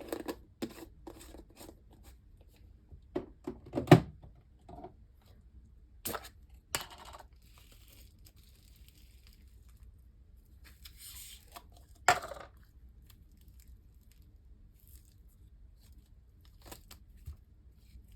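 Slime being pulled apart and handled, giving scattered sticky pops and sharp clicks, the loudest about 4 and 12 seconds in.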